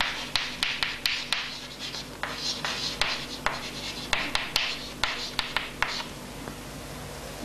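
Chalk writing on a chalkboard: quick scratching strokes and sharp taps of the chalk, which stop about six seconds in.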